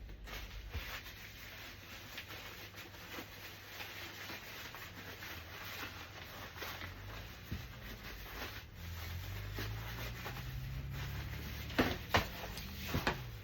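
Parts of a Graco Pack 'n Play playard being handled during assembly: steady rustling and rubbing, with a few sharp clicks near the end.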